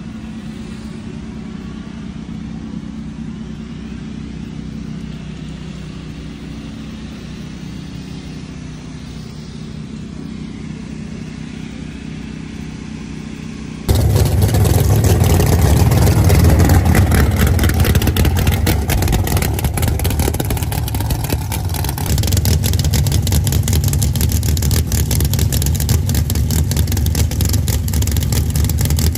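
For about the first half, a quieter steady engine hum; then the sound jumps abruptly to a much louder mud drag Ford Ranger's engine running rough and fast-pulsing through open exhaust headers, staged at the starting line before a run.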